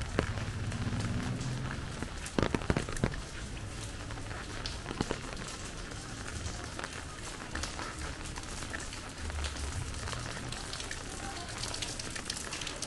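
Rain falling steadily, with many small drops ticking on nearby surfaces and a few sharper, louder taps about two and a half and five seconds in.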